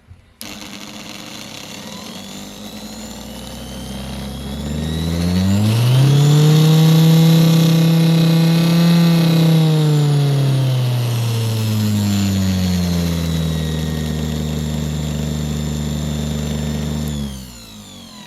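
Sewing-machine motor driving a homemade disc sander, its speed set with a dimmer controller. The motor whine starts up, rises in pitch over a couple of seconds, holds at high speed, drops back to a lower steady speed, then cuts off shortly before the end.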